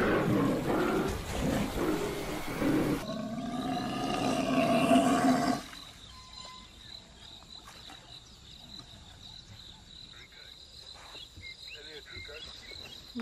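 Loud wild animal roaring and growling, ending in a long drawn-out bellow that cuts off abruptly about five and a half seconds in. After that it is quiet outdoor ambience with a steady high insect buzz and a few faint splashes or rustles.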